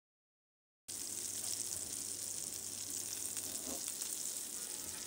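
Chicken pieces sizzling steadily in hot oil in a pan, cutting in suddenly about a second in.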